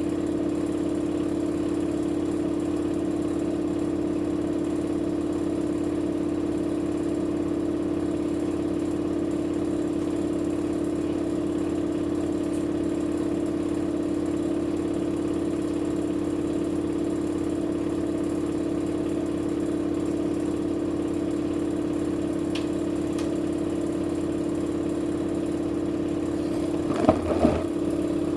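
Electrolux washing machine running its spin cycle with an unbalanced load: a steady motor and drum hum. Near the end come two loud thumps.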